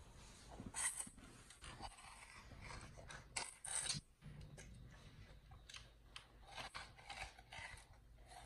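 Chimpanzee biting and chewing on a mini watermelon's flesh and rind, in short, irregular bursts of eating noise; the loudest come about a second in and again near four seconds.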